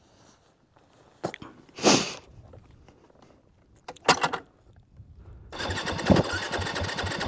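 Electric starter cranking the Yamaha WR250F's single-cylinder four-stroke engine with an even, pulsing rhythm for the last couple of seconds, without the engine catching: the bike won't fire. A few short knocks and bursts of noise come before the cranking.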